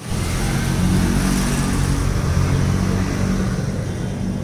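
Steady rumble of road traffic, with a low vehicle engine hum that is strongest in the middle.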